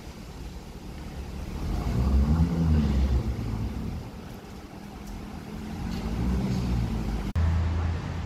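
Lamborghini Urus twin-turbo V8 under light throttle while manoeuvring at low speed, its pitch rising and falling twice. After an abrupt cut near the end, a steady low engine idle follows.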